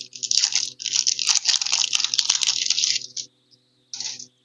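A foil booster-pack wrapper crinkling and tearing as it is ripped open, a dense run of crackles that stops about three seconds in, followed by two short rustles.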